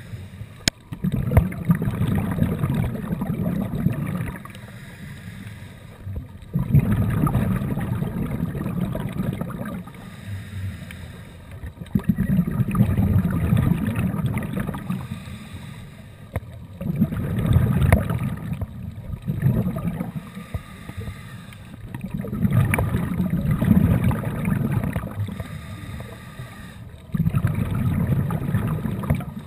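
A scuba diver breathing through a regulator underwater. A bubbly rush of exhaled air lasts a few seconds and repeats about every five seconds, with quieter inhales between.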